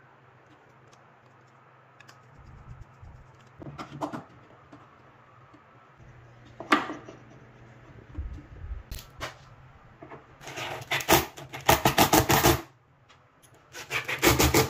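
Scattered knocks and scrapes of plywood parts being handled and fitted, then a cordless drill driving screws into plywood in two rapid clicking bursts, the longer and louder one past the middle and a short one at the end.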